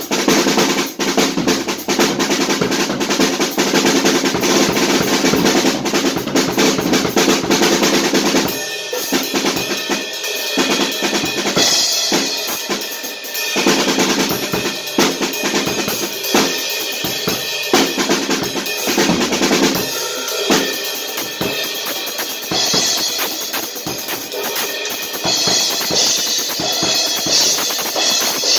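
Acoustic drum kit played in a fast, busy groove of snare, bass drum and tom strokes with cymbals. About nine seconds in the pattern thins out and the low drums drop back, with cymbal washes coming in several times.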